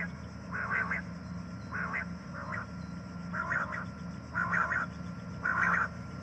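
Common quail calling: short, clipped phrases repeated about once a second, over a steady low hum.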